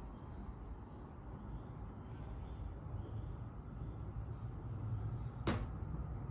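A low, steady rumble with faint short high chirps, and one sharp knock about five and a half seconds in.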